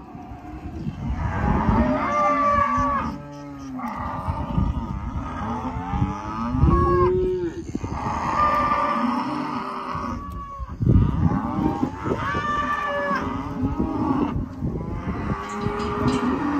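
A yard full of Santa Gertrudis-cross calves mooing, several calls overlapping and following one another almost without a break, with a few short lulls.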